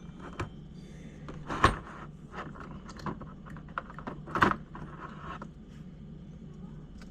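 Small plastic and metal RC crawler parts being handled while a transmission is fitted into the chassis: scattered light clicks and knocks, with two louder knocks about one and a half and four and a half seconds in, over a faint steady low hum.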